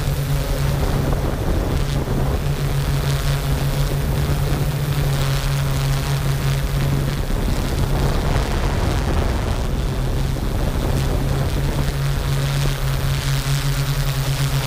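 Yuneec Q500 quadcopter's motors and propellers droning steadily while it hovers, heard from on board with a strong low hum.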